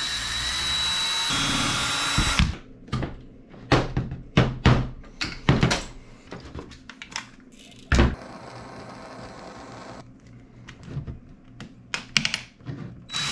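Cordless drill-driver spinning a hex bit in a screw on an RC car chassis: a steady whir for about two and a half seconds that stops abruptly. It is followed by a scatter of sharp clicks and knocks as parts and tools are handled.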